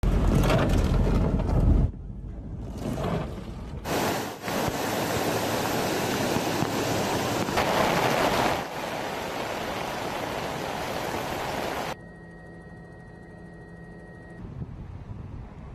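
Heavy rain and the rushing splash of cars and a pickup truck ploughing through deep floodwater on a road. The dense noise starts and stops abruptly several times. About twelve seconds in it drops to a quieter steady hum with a few held tones.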